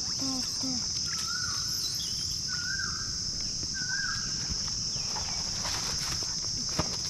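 Steady high-pitched drone of insects in the trees, with a bird calling three times. A few soft clicks and rustles come near the end.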